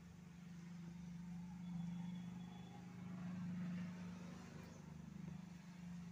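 Faint low droning hum that swells twice and eases off, with a brief faint high tone about two seconds in.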